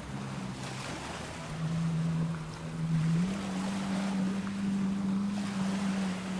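Boat engine running over wind and water noise; its pitch steps up about three seconds in as the engine speeds up.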